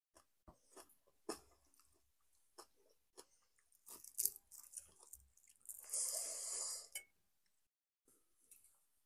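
Quiet eating sounds at a meal: chewing and crunching, with scattered small clicks and knocks, and a louder rasping noise lasting about a second around six seconds in.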